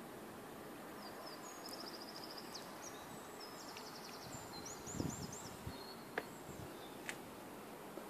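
A small songbird singing high chirps and quick rattling trills over steady outdoor background noise, with a low thump about five seconds in and two sharp clicks near the end.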